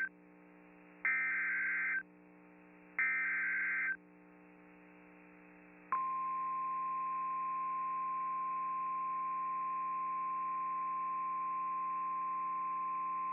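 NOAA Weather Radio alert signal: two SAME digital header bursts, harsh data screeches about a second long, then about six seconds in the single steady 1050 Hz warning alarm tone starts and holds.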